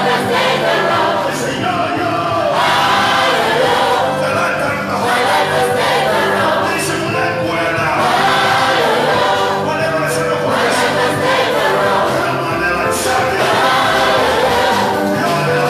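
Church congregation singing a gospel song together, loud and continuous.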